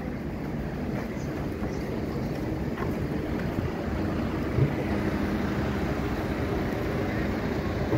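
Steady rumble of city street traffic: cars, taxis and a bus running past on the road.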